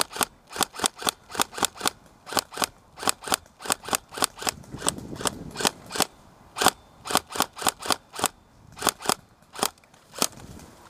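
Tokyo Marui electric blowback M4 SOCOM airsoft gun firing covering fire in fast semi-automatic shots, about three a second, each a sharp snapping crack. It keeps firing until the magazine runs empty.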